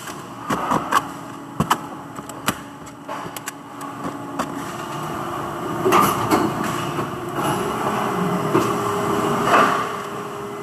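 Hard plastic parts clacking as they are handled at a workbench, a few separate knocks, then factory machinery running with a steady hum that grows louder over the second half.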